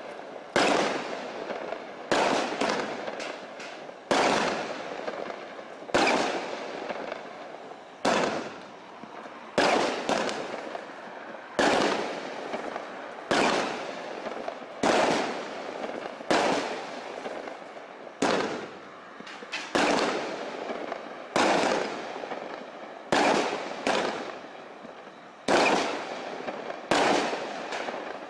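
Evolution Fireworks 'Magnitude' firework cake firing shot after shot, a sharp bang about every one and a half to two seconds, now and then two close together, each bang dying away before the next.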